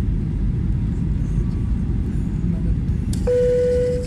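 Airliner cabin noise during the descent: a steady low roar of engines and airflow, with a short single-pitched tone sounding about three seconds in.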